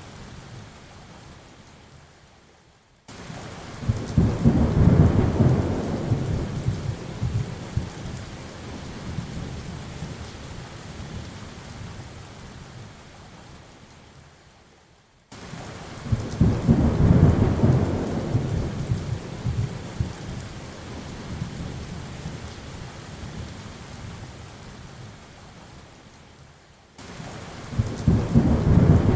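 Steady rain with thunder rolling in three times, about twelve seconds apart. Each peal starts suddenly and rumbles low for several seconds before fading back into the rain.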